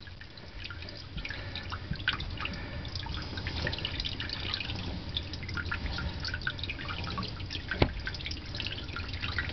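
Water dripping and trickling from an opened carbon-block shaft seal, with scattered small clicks and scraping as the shaft is turned by hand against wet-and-dry sandpaper in the seal, over a low steady hum. One sharper click stands out near the end.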